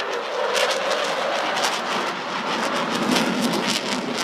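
Jet noise from an RAF Eurofighter Typhoon's twin EJ200 engines at high power during a display pass: a loud rushing noise with a ragged crackle, strongest from about a second in.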